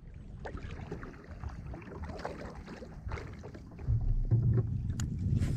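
Kayak paddling: the paddle blades dip and splash in the water, with small knocks and drips. From about four seconds in, a louder low wind rumble sits on the microphone.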